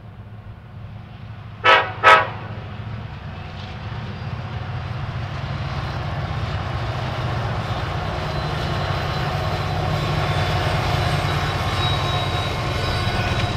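A diesel locomotive's horn gives two short toots, then the rumble of the train builds steadily as it draws nearer.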